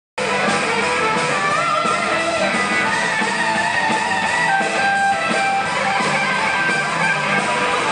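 Live rock band playing, with electric guitars, bass guitar and drums; a lead guitar line bends and slides in pitch over the steady band.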